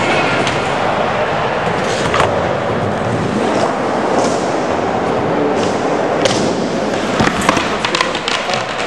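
Skateboard rolling on a skatepark floor, with several sharp board clacks and slaps, most of them in the last few seconds.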